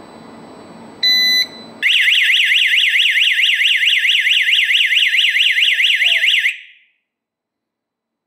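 A DY-G10A GSM home security alarm gives one short beep, then its siren sounds a loud, fast warbling wail, rising and falling several times a second. After about five seconds the siren cuts off.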